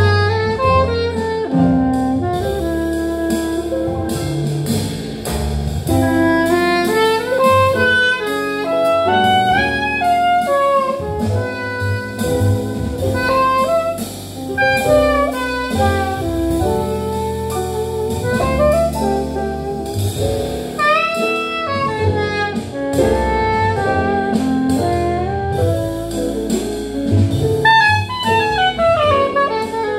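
Live jazz quartet: a soprano saxophone plays a melodic line with fast runs of notes over grand piano, upright double bass and drum kit.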